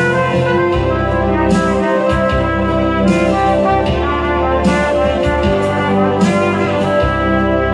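Trumpet playing a melody of held notes over an instrumental accompaniment with bass and percussion.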